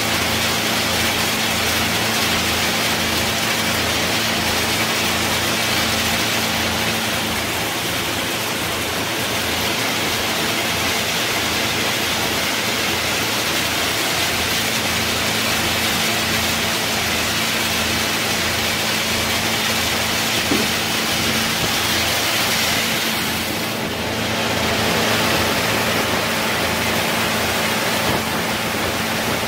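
Electric-motor-driven peanut shelling machine running steadily: a constant motor hum under the even rush of its blower fan.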